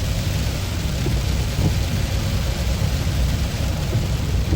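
Steady cabin noise of a car driving through heavy rain: a low rumble of tyres and engine under an even hiss of rain on the car.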